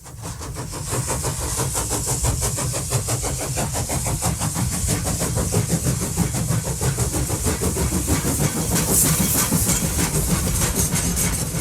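Train running: a low rumble with a hiss and rapid, even beats, fading in at the start.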